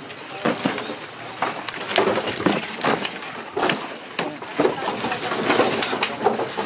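Packs of plastic water bottles in shrink-wrap being lifted and handled: a steady run of crinkling plastic and light knocks, with voices in the background.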